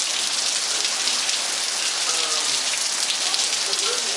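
Steady rain falling, an even, dense hiss of drops hitting surfaces.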